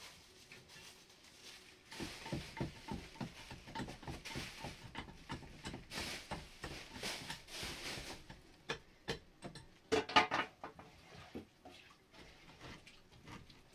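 Irregular light knocks and scrapes, quick and busy for several seconds, then sparser, with a brief louder clatter about ten seconds in.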